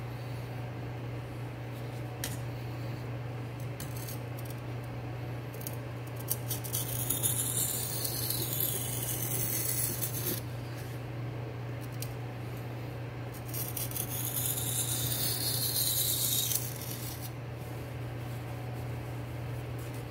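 D2 steel knife blade, held at a fixed angle in a clamp-on blade guide, stroked across a bench sharpening stone. It makes two spells of gritty scraping a few seconds long, about a third of the way in and again past the middle. Light clicks come earlier as the plastic clamp is handled.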